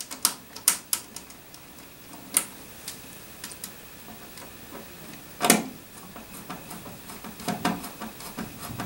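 Light irregular clicks and ticks of a Phillips screwdriver and screw against the device's metal rear panel as the filter pack's single screw is fitted and driven in, with one louder knock about five and a half seconds in.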